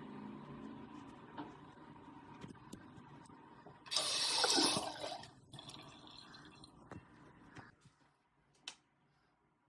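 Water running from a tap in a short loud gush about four seconds in, then a quieter flow that stops near the end, with a few small clicks.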